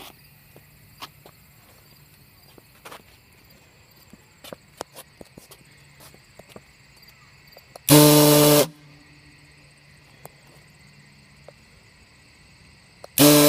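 Homemade diaphragm air horn, a pump-casing power chamber with a polycarbonate diaphragm and a 29-inch cheerleader megaphone as the bell, fired by a remote-controlled solenoid valve. It gives one short blast about eight seconds in and starts a second, longer blast near the end, each a loud, steady, deep tone with many overtones.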